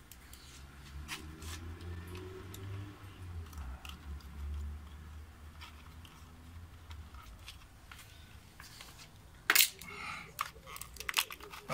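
Small clicks and rustles of hands handling the plastic housing of an infrared beam sensor mounted on a brick wall, with a sharper knock about nine and a half seconds in as a plastic spirit level is set against the unit. A low rumble runs underneath.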